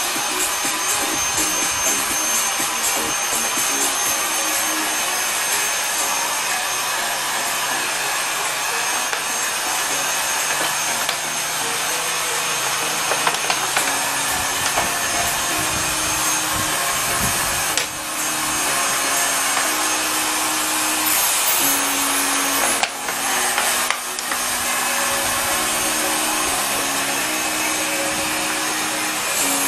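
Handheld hot air gun running, its fan giving a steady blowing rush as it heat-shrinks PVC wrap over a battery pack. The noise dips briefly a few times toward the middle.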